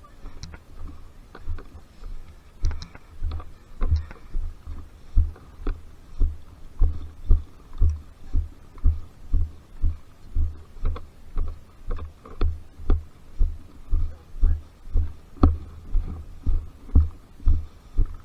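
Footsteps walking at a steady pace, about two a second, heard as dull low thumps.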